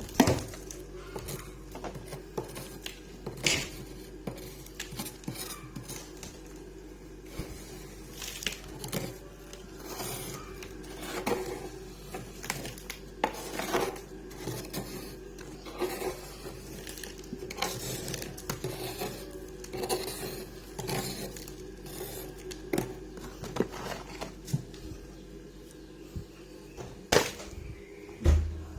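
Freezer frost being scraped and crunched close to the microphone: irregular sharp crunches and scrapes every second or so, over a steady low hum, with one louder crunch near the end.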